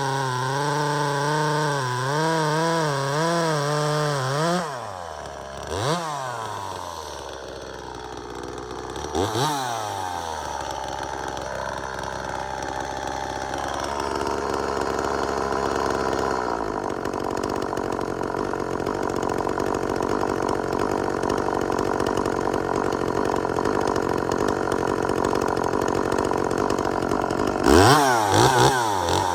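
Two-stroke top-handle chainsaw running at high speed and cutting wood, its pitch wavering under load. It drops off to idle with two quick throttle blips, then climbs back to a steady high-speed run, with a burst of revving near the end. The chain has only been lightly ground and still cuts aggressively.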